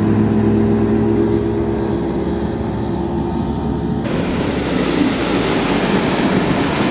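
Boat's outboard motor running at a steady speed, a constant hum. About four seconds in the sound switches abruptly to a steady rush of wind and water noise as the boat runs.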